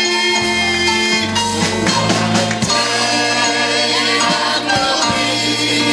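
Live Southern gospel band music, the band playing on between sung lines of the chorus, with a steady bass line and percussion.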